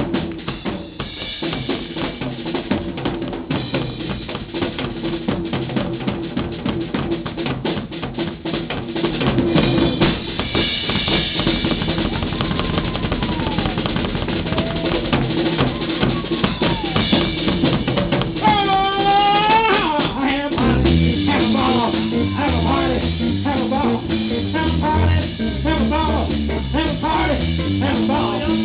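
Live drum kit solo: fast rolls and rimshots on snare, toms, bass drum and cymbals. About two-thirds of the way through a wavering, sliding tone sounds briefly, and soon after the band comes back in with steady bass notes under the drums.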